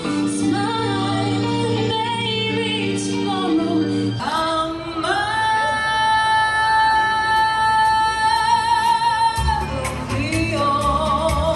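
Female singer with backing music. About five seconds in she holds one long high note for about four seconds, then a low bass part comes in.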